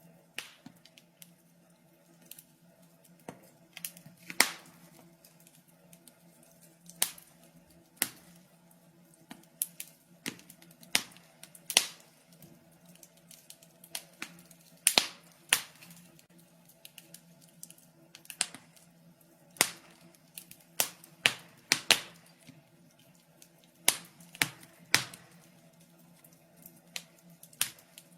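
Wood fire in a fireplace crackling: irregular sharp pops and snaps, often a second or so apart and sometimes in quick clusters, over a faint steady low hum.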